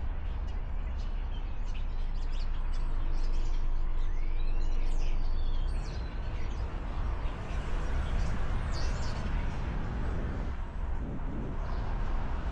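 Steady low rumble of a car, with birds chirping outside several times over it.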